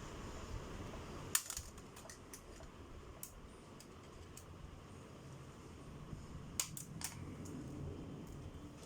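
A few sharp clicks and taps from robot-kit parts being handled and fitted, over a faint steady background noise; the loudest click comes about a second and a half in, and two more come near the end.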